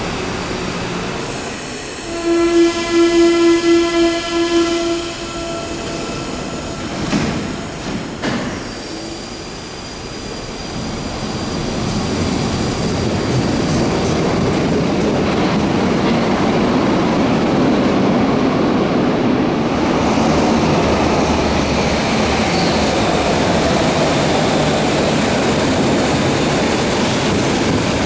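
Berlin U-Bahn F-type train at a platform: a pulsing warning tone sounds about six times, starting about two seconds in, and a few knocks follow around seven to eight seconds. The train then pulls away with a rising motor whine and rolling noise that grows loud. After a cut, a small-profile A3 U-Bahn train runs through a station with steady wheel and motor noise.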